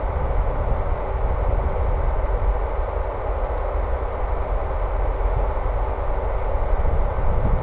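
RC Hobbyzone Super Cub's E-flite Power 10 brushless electric motor and 11x7 APC propeller running steadily at cruise, with a faint steady hum. Wind rushes and buffets low on the onboard microphone.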